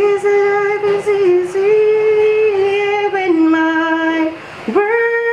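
One voice singing slow, long held notes in a high register that step down and back up in pitch, with a short break near the end and a sliding rise into a new held note.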